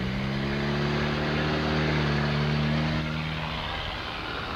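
Cars driving past on a wet road: a steady engine drone that holds for about three seconds and then fades, over a hiss of tyres.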